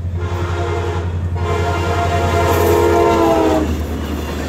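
CSX EMD GP40-2 diesel locomotive sounding its horn for a grade crossing: a short blast, a brief break about a second in, then a long blast whose pitch sags slightly near the end. The horn cuts off as the locomotive rushes past, leaving the noise of the passing train over a steady low rumble.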